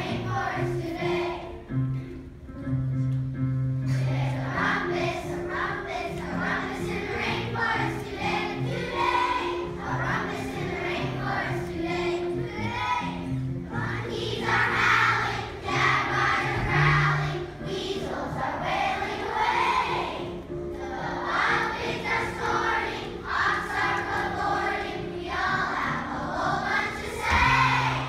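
A large group of children singing a song together over an instrumental accompaniment. The voices drop out for a moment about two seconds in while the accompaniment carries on, then return.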